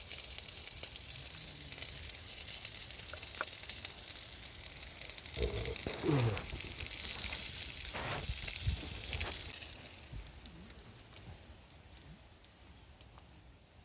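Meat sizzling on a hot pan, with a few knocks of utensils in the middle; the sizzle dies away about ten seconds in.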